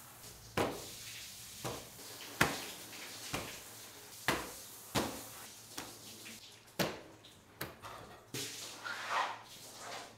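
Raw butterflied trout fillets slapped down one after another onto a stainless steel counter: about nine sharp slaps, irregularly spaced, over a low steady hum.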